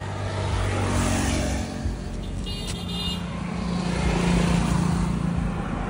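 Road traffic noise: a steady rush of passing traffic and a low engine hum, loudest about four seconds in, with a brief high-pitched tone about two and a half seconds in.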